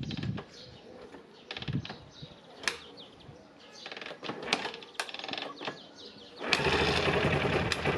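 KTM 625 SMC's single-cylinder four-stroke engine being kick-started on its first start after about five years of storage: a few sharp clicks and knocks from the kick-start strokes, then about six and a half seconds in the engine fires and keeps running loudly and steadily.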